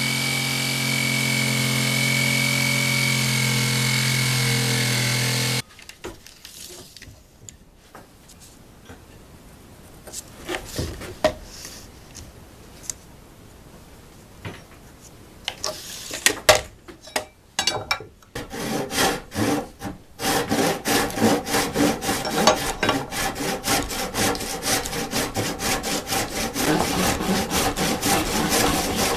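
An electric drill runs steadily for about five and a half seconds, boring a hole in a 2x12 board, and stops abruptly. After a stretch of quieter knocks and handling, a handsaw cuts into the board with fast, even back-and-forth strokes, about two or three a second, cutting out a V notch.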